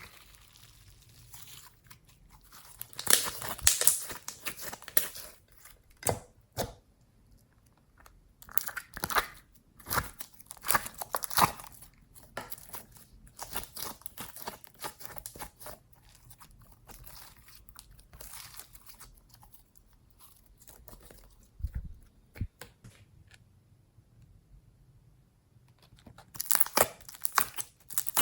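Slime being squished, stretched and kneaded by hand, making irregular sticky crackles and pops. These come in clusters, heaviest about three seconds in, around ten seconds in, and near the end.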